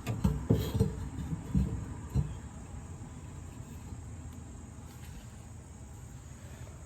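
A few short knocks and scrapes in the first two seconds as a notched wooden block is slid onto a mower blade, then crickets chirping steadily in the background.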